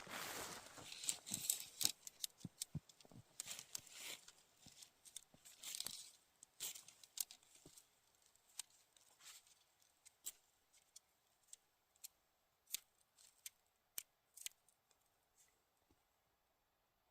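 Tent being pitched by hand: nylon fabric rustling and crinkling with many short clicks. The clicks are busy for about the first eight seconds, then come only now and then.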